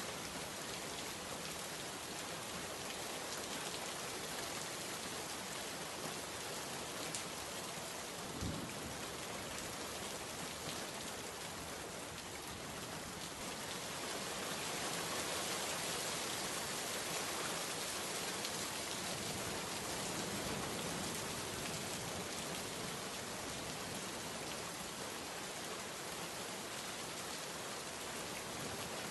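Steady rain pattering on window glass, an even hiss that swells slightly in the middle. One short low thump about eight seconds in.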